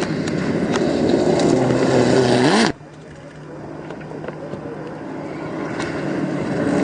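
Rally car approaching flat out on a gravel stage, its engine revving and climbing in pitch, with sharp ticks of gravel. The sound cuts off suddenly about three seconds in, then a car's engine builds again, louder and louder toward the end.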